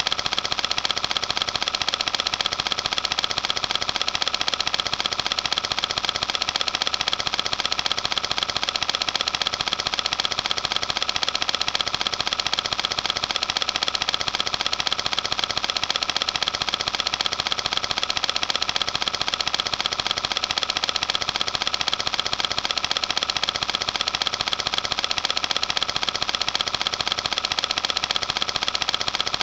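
Cine film projector running, its film transport making a steady, fast mechanical rattle that does not change.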